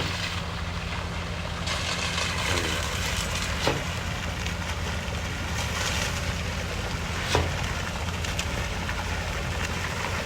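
Concrete boom pump truck's diesel engine running steadily under load while pumping, with a short sharp knock about every three to four seconds.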